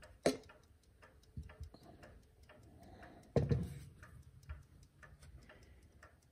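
A running Chelsea ship's strike clock's movement giving quick, even ticking, with a couple of knocks as its brass case is handled. The loudest knock comes about three and a half seconds in.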